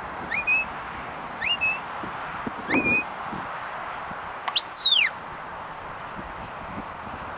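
Sheepdog handler's whistle commands to a Border Collie working sheep: three short upward-sliding whistle notes about a second apart, then a louder, longer whistle that rises and falls about four and a half seconds in.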